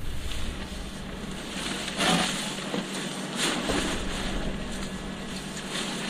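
Nylon fabric of a pop-up spray booth rustling and swishing as it is opened and handled, with louder swishes about two seconds in and again a little after three seconds, over a faint steady hum.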